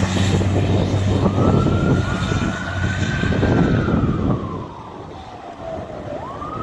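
Fire truck's siren sounding a slow wail: its pitch climbs, holds high for a couple of seconds, falls away over about two seconds, then sweeps sharply back up near the end. The truck's engine runs loudly underneath at first, and everything grows quieter about four seconds in as the aerial ladder truck pulls away.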